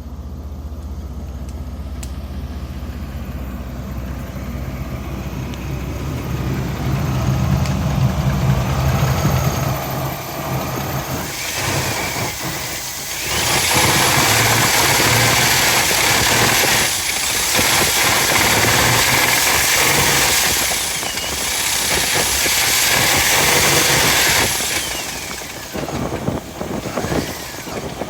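A GMC engine running steadily. From about eleven seconds in, a loud rushing hiss comes in over it in several long stretches with short breaks.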